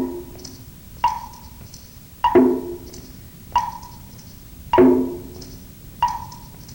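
Slow percussion count for exercise pacing: a higher wood-block knock and a lower, ringing block tone alternate, one strike about every 1.2 seconds.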